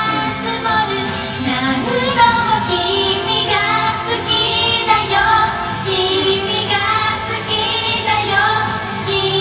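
Japanese idol pop song performed live: young female voices singing the melody over a pop backing track.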